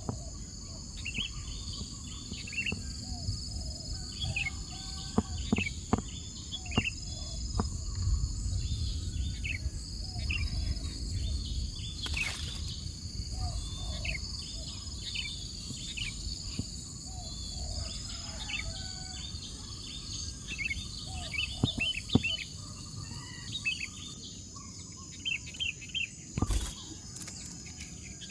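Many short bird chirps and calls over a steady high insect drone and a low wind rumble. A sharp knock sounds about twelve seconds in and another near the end.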